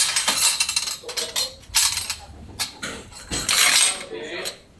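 Hand tools and metal parts being handled: a run of sharp metallic clinks and rattles, broken by stretches of scraping.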